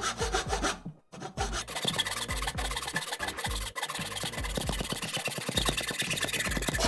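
Pull saw cutting through a thin strip of beading wood with quick back-and-forth strokes, pausing briefly about a second in.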